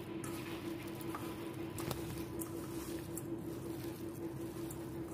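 A hand squishing and kneading raw minced chicken with spices in a steel bowl: soft wet squelching with a few faint clicks, over a steady hum.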